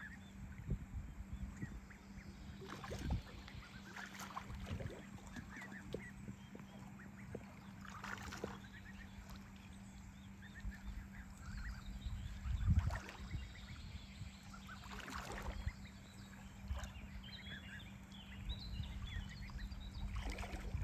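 Ducks on a pond giving scattered short calls over an uneven low rumble and a steady low hum, with a few brief knocks, the loudest about two-thirds of the way through.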